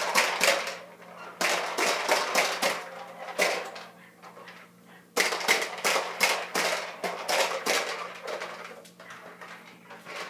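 Push-along ball-popper toy being rolled across a rug, its balls popping and clattering inside the clear dome in quick runs of sharp pops, with a brief lull about four seconds in.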